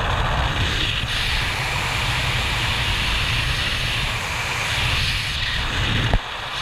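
Wind rushing over the camera microphone in skydiving freefall, a steady heavy rumble with hiss. About six seconds in there is one sharp thump, after which the wind noise is a little quieter.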